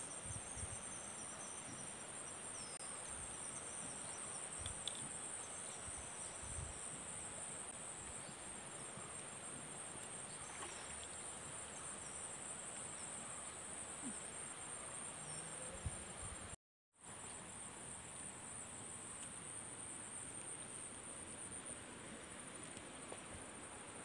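Steady high-pitched chorus of insects, broken off for a moment about two-thirds of the way through, with a few faint low thumps.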